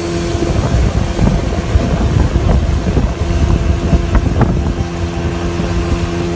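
Speedboat's outboard motor running at speed with a steady hum, with wind buffeting the microphone.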